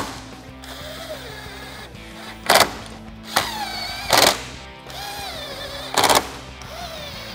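Cordless impact gun with a socket running bolts down along the top of a car's bumper cover in about four short bursts, each under half a second. The bolts are only being snugged, not over-tightened. Background music plays underneath.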